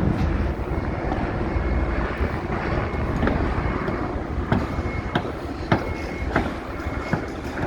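Construction-site and city noise: a steady low rumble, with sharp knocks every second or so from about three seconds in, and a faint high tone that comes and goes.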